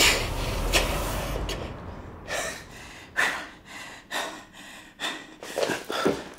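A man gasping and panting in exaggerated breaths: a long breathy exhale at the start, then a series of short gasps that come faster toward the end.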